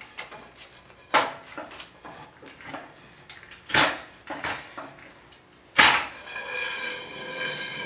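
Metal knocks and clanks as a transmission is set down onto a bench, three sharp hits with the last one ringing on for a second or so.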